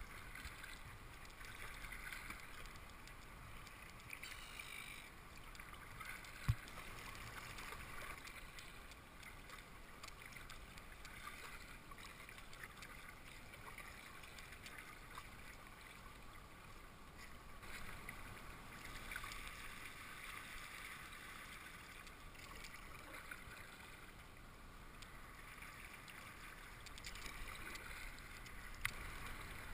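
Faint water splashing and trickling as a double-bladed kayak paddle dips and drips, with one sharp knock about six seconds in.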